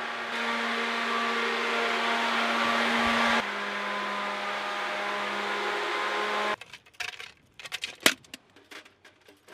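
Ship's machinery running steadily: a loud, even noise with a steady hum whose pitch drops slightly about three and a half seconds in. It cuts off suddenly about six and a half seconds in, leaving a few scattered clicks and knocks, the sharpest about eight seconds in.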